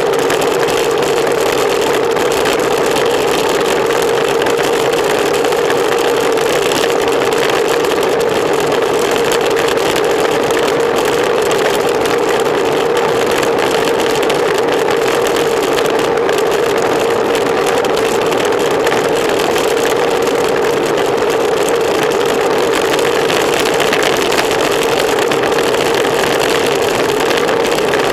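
Wind rushing over a bicycle-mounted camera's microphone with tyre and road noise as the bike rides at race speed: a loud, steady hiss over a constant low drone.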